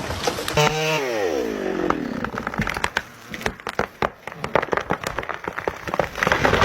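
Chainsaw engine winding down from high revs, a falling whine, followed by a few seconds of irregular sharp cracks and snaps of splintering wood; a louder rush of noise rises near the end.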